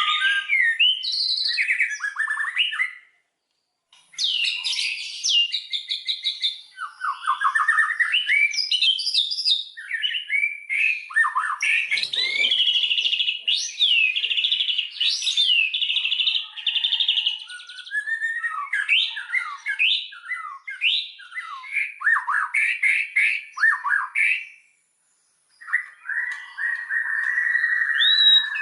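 White-rumped shama singing a fast, varied song of sweeping whistles, rapid trills and chattering phrases, broken by two brief pauses.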